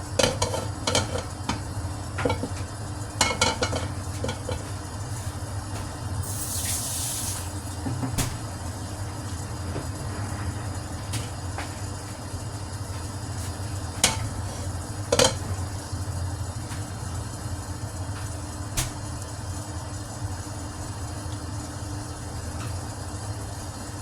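Oil heating in a pan on a stove, with a steady low hum and faint sizzling. Utensils clink against the pan several times in the first few seconds, a short hiss comes about seven seconds in, and a few sharp clinks follow later.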